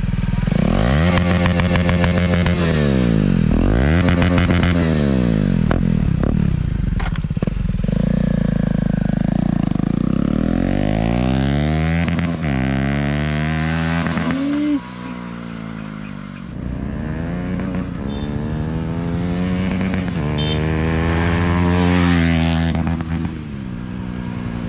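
KTM Duke 250's single-cylinder engine through an aftermarket Akrapovic exhaust, revved repeatedly. It starts with quick blips of the throttle, then comes several longer climbs to high revs, each falling back.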